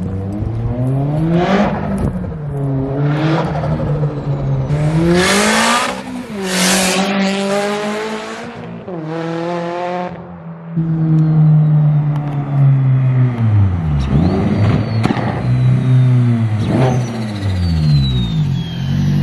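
Turbocharged 2022 Subaru BRZ flat-four engine revving hard under acceleration, its pitch climbing and dropping again and again as it pulls through the gears. Loud rushing hisses come twice about five to seven seconds in, and a thin falling whistle sounds in the second half.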